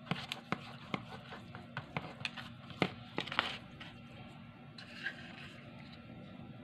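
Fingers patting and rubbing marinade onto a raw salmon fillet in a plastic container: about a dozen quick taps and slaps over the first three and a half seconds, then a short, softer scrape.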